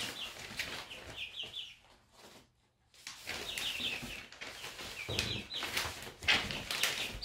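Young half-grown chickens peeping in quick runs of short falling notes, mixed with scuffling and rustling. There is a brief lull about two seconds in.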